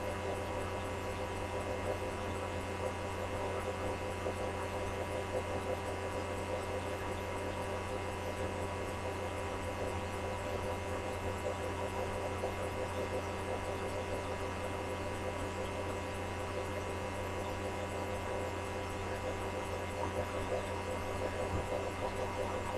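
Steady electrical mains hum: a low drone with several fainter steady higher tones above it, unchanging throughout.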